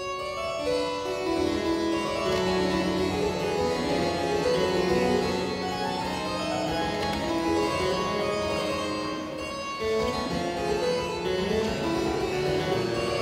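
Live baroque chamber music with a harpsichord prominent, playing a continuous run of quick notes.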